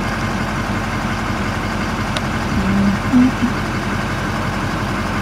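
Vehicle engine idling steadily, with two short low hums about two and a half and three seconds in.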